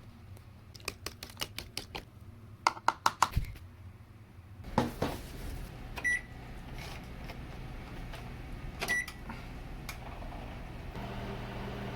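Microwave oven heating egg for a rolled omelette: a steady low hum starts about five seconds in and runs on, with two short high beeps over it. Before the hum, scattered clicks and then a quick run of sharper clicks.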